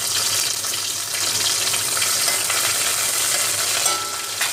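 Curry leaves sizzling in hot oil in a steel pot as a tempering: a steady hiss with fine crackling.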